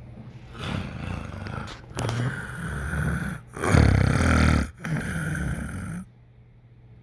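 Loud snoring: four long, noisy breaths one after another, each with a low buzz, stopping about six seconds in.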